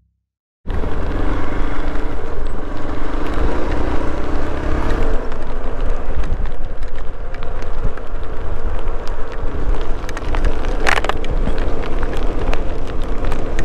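Hero Xpulse 200's single-cylinder engine running under way, mixed with heavy wind and rain noise on the rider's microphone. It cuts in abruptly just under a second in, with a few sharp ticks near the end.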